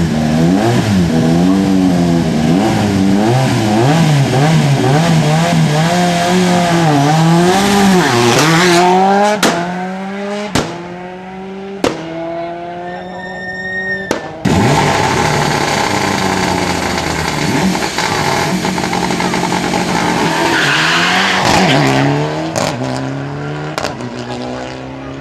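Rally car engine held at high, wavering revs on the start line, then launching and accelerating away through several quick upshifts, its pitch sweeping up and dropping at each gear change. Later another rally car's engine revs and pulls away the same way, rising through the gears.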